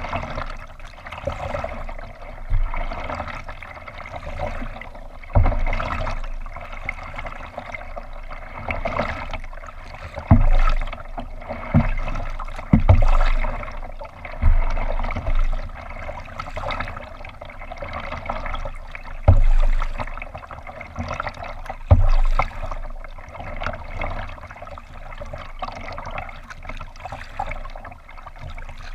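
Water trickling and splashing along a kayak hull as it is paddled, heard muffled through a GoPro's housing, with dull low thumps at uneven intervals of a few seconds.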